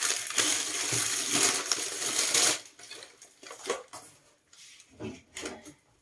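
A bag of bread crinkling loudly as it is handled for about two and a half seconds. A few light knocks follow as groceries are set down on the counter.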